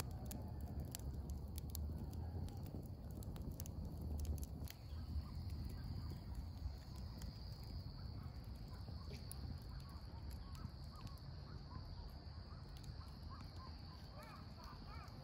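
Evening outdoor ambience: a steady high insect trill over a low rumble, with scattered clicks in the first few seconds and short bird chirps that come more often near the end.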